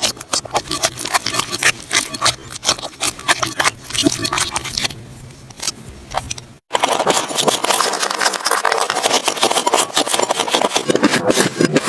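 Slime being handled and squeezed, making a rapid, irregular run of sticky clicks and pops. After a sudden cut about two-thirds of the way in, it turns to a denser crackling, scraping texture.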